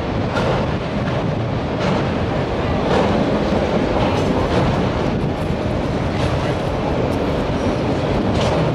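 Freight train of autorack cars rolling past close by: a steady rumble of steel wheels on the rails.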